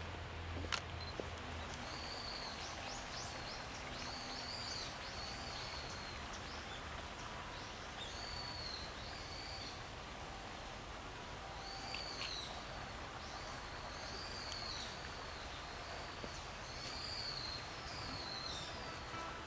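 Steady hiss of rain falling on a garden pond, with a small bird repeatedly calling in short, arched, high chirps that come in runs of several. One sharp click sounds just under a second in.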